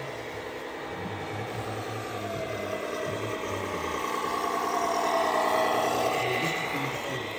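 Electric motors and gearboxes of scale RC construction machines whining over a steady mechanical hum. The whine rises and falls in pitch, grows louder to a peak about five seconds in, and eases off near the end.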